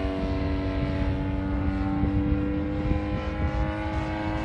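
DLE 35RA two-stroke gasoline engine of a Hangar 9 Tiger 30cc RC airplane running at a steady, even drone, with a low rumble underneath.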